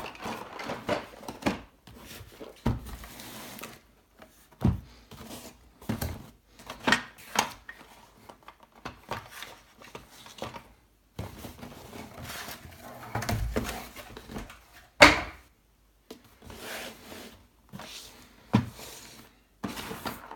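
Cardboard boxes being lifted out of a larger cardboard box and set down on a table: cardboard scraping and rubbing on cardboard, with a string of irregular knocks, the sharpest about fifteen seconds in.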